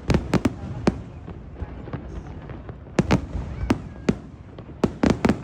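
Fireworks bursting overhead in sharp, irregular bangs: a quick cluster at the start, single reports about one and three seconds in, and another rapid cluster near the end.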